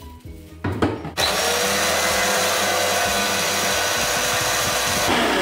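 Kitchen mixer grinder (mixie) grinding onion, tomato, green chilli and ginger into a wet masala paste. There are a few knocks, then about a second in the motor starts and runs steadily and loudly.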